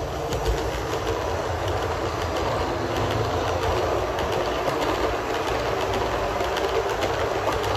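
HO-scale model train, an electric locomotive hauling passenger coaches, running past on the layout track: a steady running noise with many small clicks of wheels over the rail joints.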